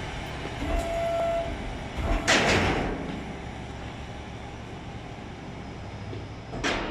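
Dock leveler in operation: a steady mechanical background with a short thin whine about a second in, a loud hissing rush lasting under a second about two seconds in, and a shorter one near the end.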